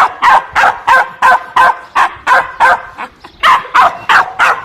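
Dog barking over and over at a fast, even pace, about three barks a second, with a brief pause about three seconds in.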